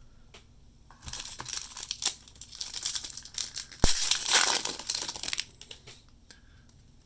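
Foil trading-card pack wrapper being torn open and crinkled: a crackling rustle from about a second in until past five seconds, with a sharp click just under four seconds in.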